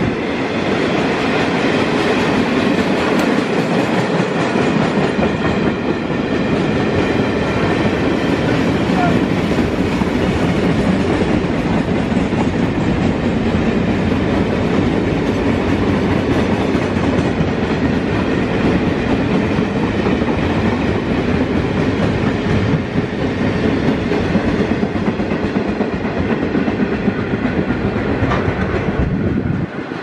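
Freight train of empty steel flat wagons rolling past at a steady pace, its wheels running along the rails in a continuous loud rumble and rattle that drops away abruptly near the end as the last wagon clears.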